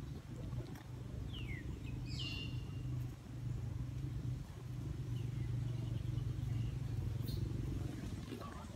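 Steady low hum of an engine running, with two short high-pitched chirps that fall in pitch, about one and a half and two seconds in.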